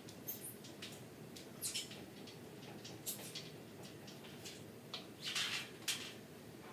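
Faint, irregular high squeaks and clicks from a steel power tower's dip station as a man does dips, with a longer hissing burst about five seconds in. A steady low hum runs underneath.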